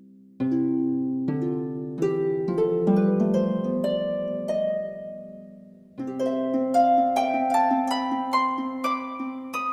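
Background music of plucked, harp-like notes in gentle arpeggios, with a new phrase beginning about half a second in and another climbing upward from about six seconds in.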